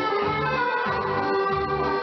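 Music: long held melody notes over a bass line that pulses about twice a second.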